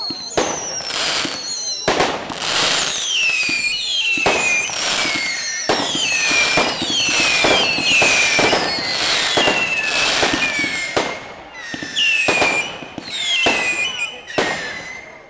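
Fireworks going off: many overlapping whistles falling in pitch, with repeated sharp bangs and crackling, thinning out near the end.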